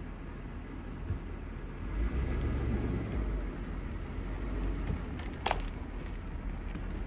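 Car driving slowly along a dirt road, heard from inside the car: a steady low rumble of engine and tyres on the unsealed surface, growing louder about two seconds in. A single sharp click about five and a half seconds in.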